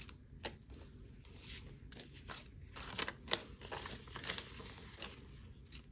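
Paper banknotes rustling and crinkling faintly as bills are handled and slid into a binder's cash envelope, with scattered short crisp ticks.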